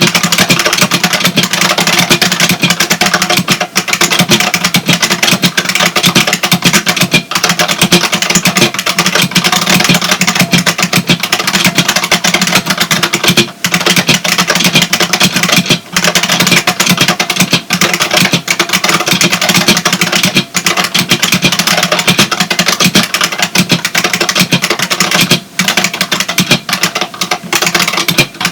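IBM Model M keyboard's buckling-spring keys typed on fast and without letup, a dense stream of loud clicks and clacks broken by a few brief pauses.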